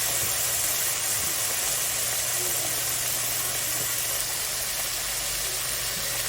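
Potato gochujang stew cooking in the pot, a steady hiss over a constant low hum.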